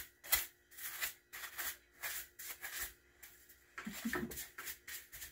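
Hands brushing and swiping sawdust off cloth clothing, quick rubbing strokes two or three a second.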